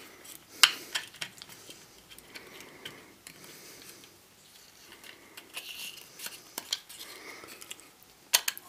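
Handling clicks and knocks of a hobby servo being pushed into a 3D-printed plastic tracker tray by hand, with a sharp click about half a second in, a few lighter taps after it and a quick pair of knocks near the end.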